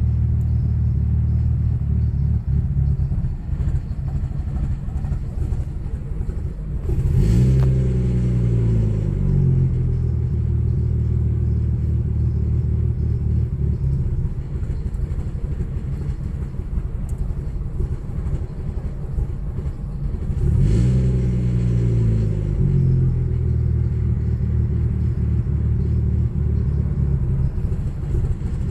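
Audi B5 S4's 2.7-litre twin-turbo V6 idling with an uneven, stumbling beat, a misfire after a cold start. It is revved briefly twice, about fourteen seconds apart, each time rising and dropping back to idle.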